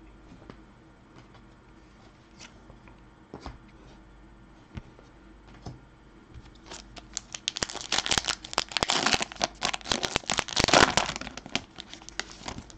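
A few light taps of a card being handled and set down on a table, then, about six seconds in, the dense crinkling and tearing of a foil hockey card pack wrapper being ripped open.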